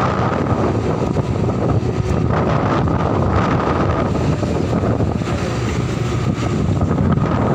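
Steady drone of heavy machinery with a thin, steady whine above it, and strong wind buffeting the microphone.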